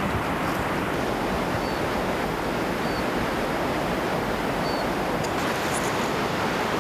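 Steady rushing outdoor noise with no gusts or breaks, with a few faint, short high chirps over it.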